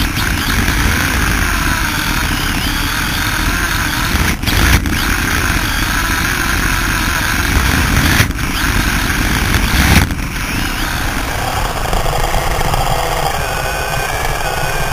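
Radio-controlled drift car heard through a camera on its own chassis: a heavy rumble of vibration and tyre noise, with the motor's whine rising and falling in pitch as the throttle changes. A few brief jolts break it.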